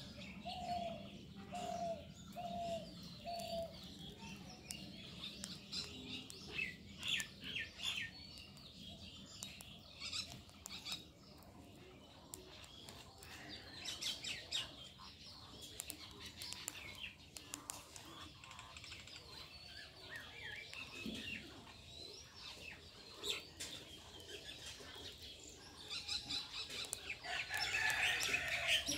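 Outdoor birdsong: birds chirping and calling, with a low call repeated four times about a second in and busier high chirping near the end.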